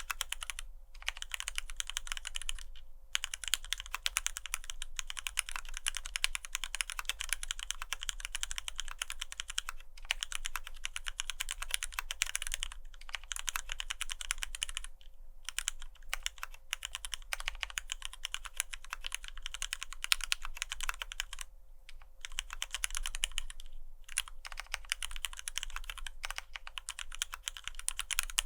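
Fast, continuous typing on a freq1 F1-8X custom mechanical keyboard with lubed Cherry retooled black linear switches and PBT keycaps. The switches are left unlubed at the stem shoulders to keep the upstroke top-out clack. A dense run of key clacks is broken by a few short pauses.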